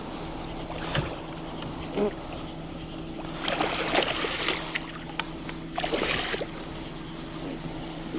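Hooked blue catfish thrashing and splashing in shallow water near the end of the fight, in two spells of about a second each, over a steady low hum.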